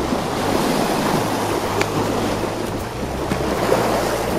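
Small sea waves lapping and splashing on a rocky shoreline, with wind buffeting the microphone.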